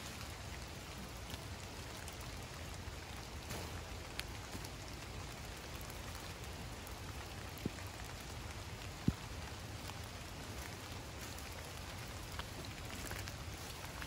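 Steady rain falling, an even hiss, with a few single sharp ticks, the loudest about nine seconds in.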